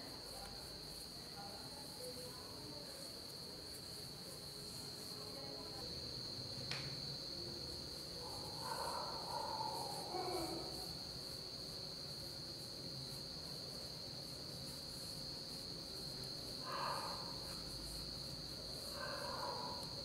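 Crickets chirping in a steady high-pitched trill, with a single click a few seconds in and a few brief soft sounds near the middle and end.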